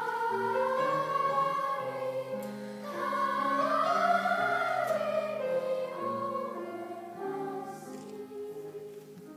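A young choir singing a slow, sustained phrase in several parts, swelling louder about three seconds in and then fading toward the end.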